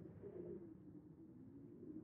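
Winter wind howling softly: a low moaning tone that wavers slightly in pitch over a faint rush of air.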